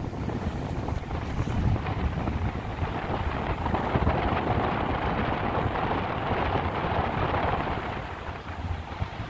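Wind buffeting the microphone on the open deck of a Nile river cruise ship, over the low drone of the ship's engines; it eases a little near the end.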